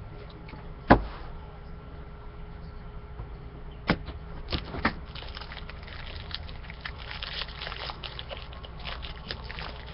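Trading cards and pack wrappers being handled: a sharp knock about a second in, a few clicks around four to five seconds, then a run of crinkly rustling as cards are shuffled through, over a steady low hum.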